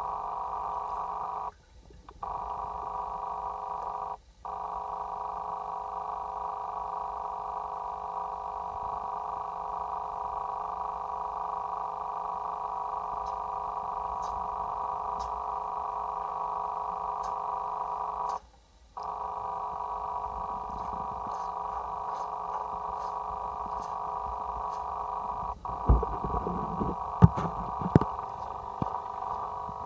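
A steady droning hum made of several held tones, cutting out briefly three times. Near the end come a few sharp knocks and splashes.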